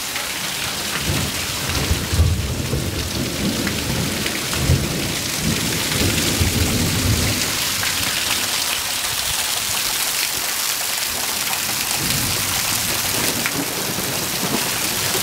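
Heavy rain pouring steadily, with thunder rumbling low from about a second in until about seven seconds, and again briefly near the end.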